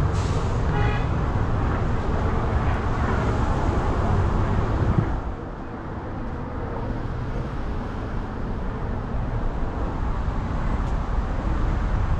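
Street traffic noise: a loud vehicle passing for about the first five seconds, then a steadier, quieter roadway rumble.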